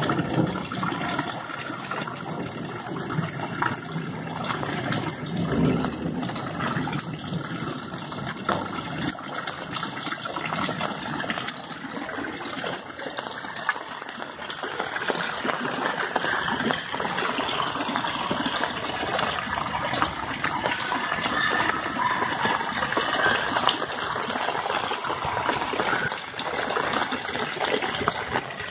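Heavy rain pouring onto a flooded street, with water gushing and splashing on the floodwater in a steady rush.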